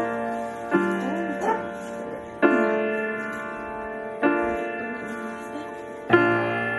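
Slow, gentle background piano music: a chord is struck about every two seconds and left to fade.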